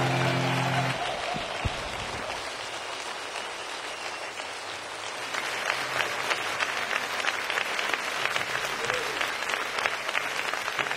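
Audience applauding, with the last acoustic guitar chord dying away in the first second. Sharper individual claps stand out in the second half.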